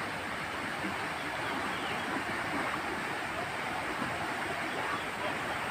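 Steady rush of fast-flowing water in a narrow concrete irrigation channel.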